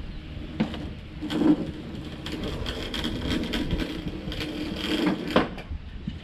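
Rope running over a box truck's roof edge with rough creaking and scraping as a heavy Night Scan Chief light tower is lowered by hand. Several sharp knocks as the hanging unit bumps the truck's side, the loudest about a second and a half in and again near the end.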